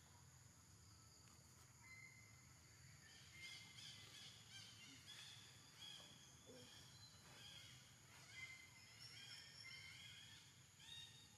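Faint forest ambience: a steady insect drone, joined from about three seconds in by a run of short, high chirping calls.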